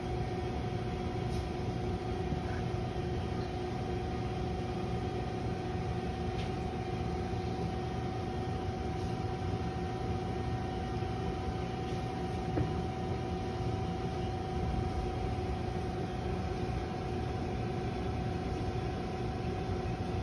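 Steady mechanical hum of commercial kitchen equipment: a broad low rumble with two steady tones over it, unchanging throughout, with a few faint light clicks.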